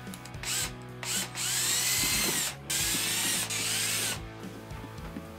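Cordless drill driving small screws into a plastic box: two short bursts, then two longer runs, the motor's whine rising and falling as the screws go in.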